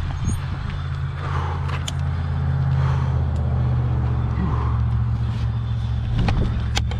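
A motor vehicle engine running steadily, a low even hum, with a couple of sharp clicks.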